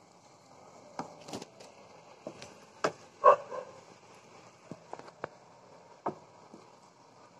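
A few scattered light knocks and clicks, about eight in all, the loudest a sharp knock just past three seconds in.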